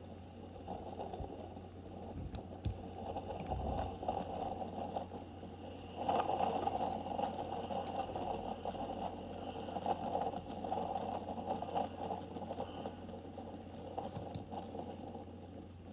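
Steam locomotives 9351 and 7828 hauling a rake of coaches away, heard through a webcam microphone as a rushing, clattering noise that grows louder about six seconds in, over a steady low electrical hum.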